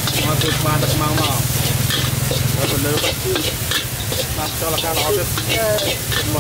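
Metal spatula scraping and tossing fried rice around a carbon-steel wok, with repeated sharp scrapes over the sizzle of the frying rice. A steady low hum runs underneath.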